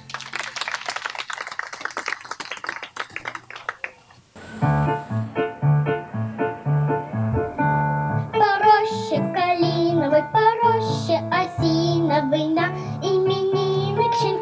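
Music: a rapid shimmering rattle for the first few seconds, then a song starts with a steady bass line, and a high voice begins singing the melody about halfway through.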